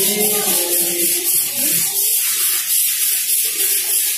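Music with a singing voice over a steady high hiss.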